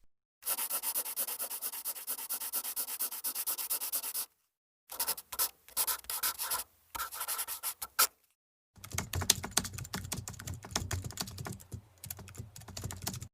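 Quick, sharp clicking and tapping sound effects in three separate runs with short silent gaps. The first run is fast and even. The second is sparser and irregular. The last is denser and heavier in the low end.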